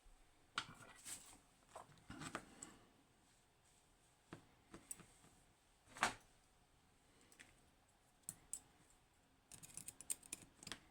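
Scattered light clicks and taps of small metal tools and lock parts being handled on a bench, with a quick run of clicks near the end.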